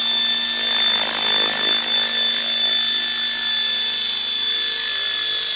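Electric RC helicopter's motor and rotors running in a steady high whine as it hovers low. A lower hum under the whine fades out about two seconds in.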